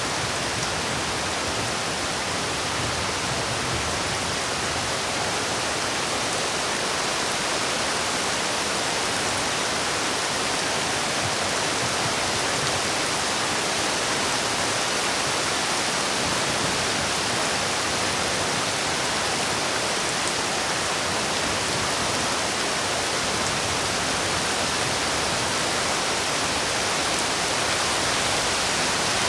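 Steady heavy rain, an even hiss with no single drops standing out.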